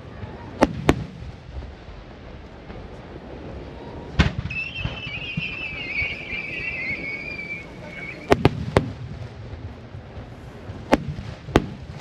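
Large aerial firework shells bursting in a big display: sharp bangs, two near the start, one at about four seconds, three in quick succession at about eight seconds and two near the end, over a steady low rumble. A wavering high whistle runs for about three seconds after the bang at four seconds.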